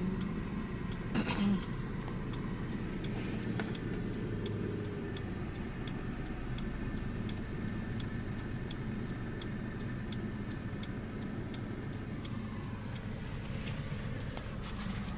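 Steady low rumble of a car on the move, with a light tick repeating about twice a second.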